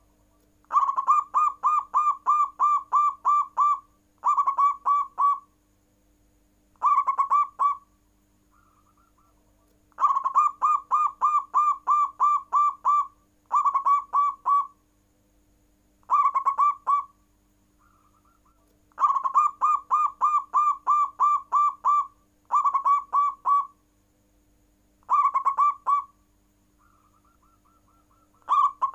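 Zebra dove (perkutut) singing its cooing song: a rapid run of about ten pulsed coos, followed by two shorter bursts, the whole phrase repeated three times. Fainter calls come between the bouts.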